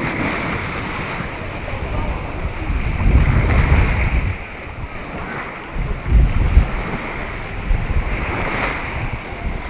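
Caspian Sea waves washing onto the beach, with wind buffeting the microphone in heavy rumbling gusts about three and six seconds in.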